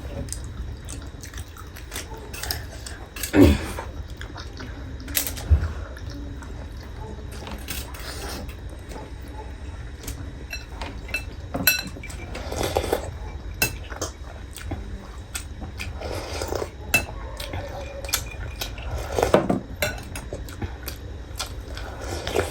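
Cutlery clinking and scraping against dishes and bowls, in irregular clicks with a few louder knocks.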